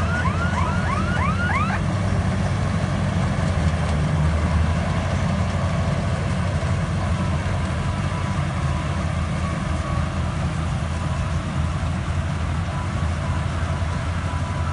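Simran 676 combine harvester's engine running steadily. A quick run of short rising chirps sounds over it during the first two seconds.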